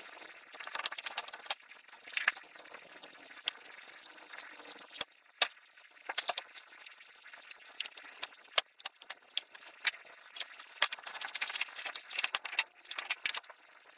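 Irregular light metallic clicks and rattles of a PC expansion card, its bracket and screws being handled inside an open computer case, as a graphics card is pulled from its PCIe slot and a dual-port Ethernet card is fitted in its place.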